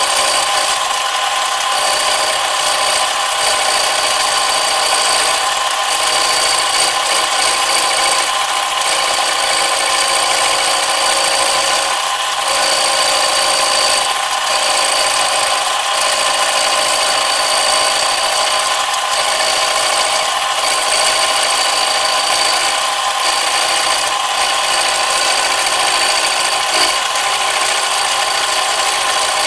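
Power tool running continuously while cutting metal away from a disc brake conversion bracket. It makes a steady whine with a gritty cutting hiss, with brief small dips in level.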